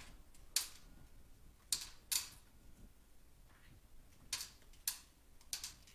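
Dry bird-food pellets clicking into a food bowl: about six separate sharp clicks, spaced irregularly.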